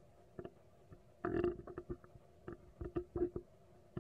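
Young macaque chewing rambutan close to the microphone: irregular small wet clicks and smacks, with one longer, louder crunch about a second and a half in.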